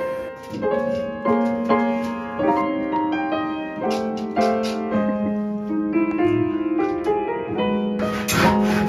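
Background piano music: a gentle melody of separate, ringing notes. Near the end a rhythmic hissing pulse joins in, a few strokes a second.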